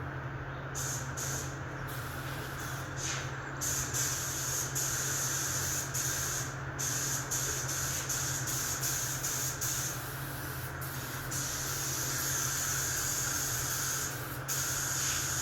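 Primer being sprayed onto a car's front wing: a steady spray hiss that stops and starts several times as separate passes are made, over a steady low hum.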